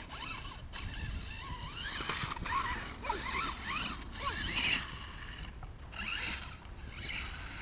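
Radio-controlled truck's motor whining up and down in short bursts as it is throttled, over a steady rumble of wind on the microphone.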